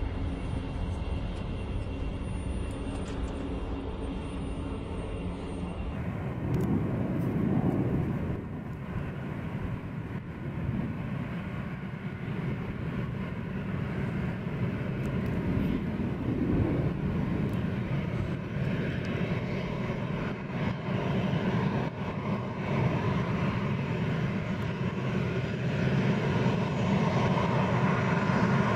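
A-10 Thunderbolt II's twin TF34 turbofan jet engines running as the aircraft taxis, with a whine that grows louder toward the end. Before that, about the first six seconds hold a steadier, more distant low jet rumble.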